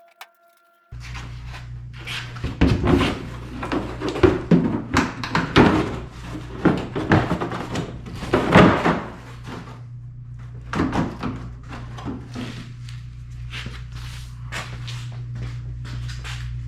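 Irregular knocks, clunks and rattles of metal body parts and tools being handled while a truck's fender and door are refitted, busiest in the first half and sparser later, over a steady low hum.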